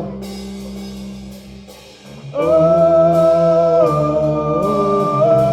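Live metal band playing, quieter for the first couple of seconds; about two and a half seconds in, a long held note comes in loudly over the band and is held for about three seconds.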